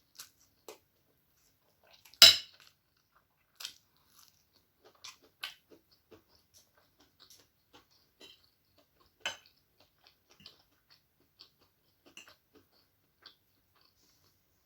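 Close-miked eating of chow mein: scattered crisp bites and chewing sounds with small clicks of a utensil on the plate. The loudest is a sharp crack about two seconds in.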